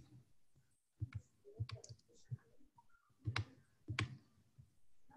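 Scattered light clicks from a computer's keyboard and mouse, about six, irregularly spaced.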